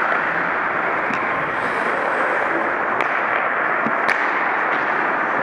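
Ice hockey play: a steady rushing noise of skating on the ice, with sharp clacks of sticks and puck about a second, three seconds and four seconds in.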